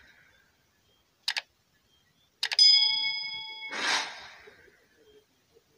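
Edited-in sound effects: a quick double click, then a few more clicks and a bell-like ding that rings for about a second, followed by a whoosh.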